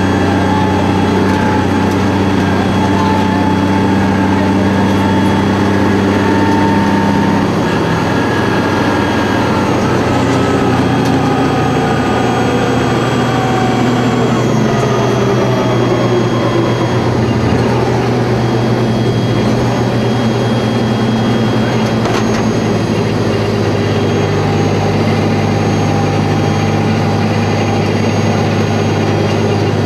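BTR-4 armored personnel carrier's diesel engine running under way, heard from inside the hull as a loud, steady drone. The engine note falls about a third of the way in as the vehicle slows, then holds steady again.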